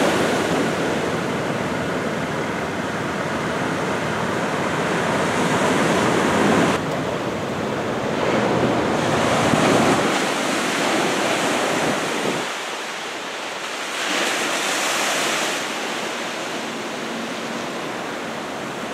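Heavy ocean surf from a typhoon swell, breaking and washing in, swelling and easing in surges every few seconds, with wind noise on the microphone.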